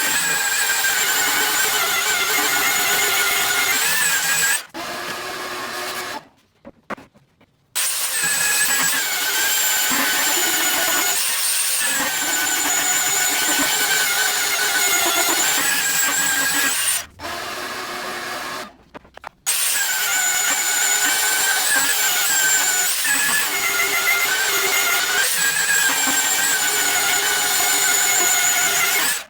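Electric sander running on wood with a steady, wavering high whine. It drops off and stops twice, then starts up again each time.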